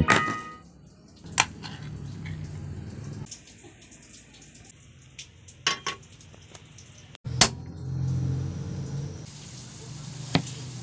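Kitchen clatter: a few sharp knocks and clinks of a frying pan handled on a stovetop burner, and near the end a knife tapping through a tomato onto a plastic cutting board.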